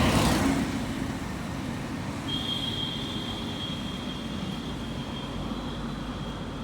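Steady low vehicle rumble after a louder noisy start, with a thin high steady whine coming in about two seconds in.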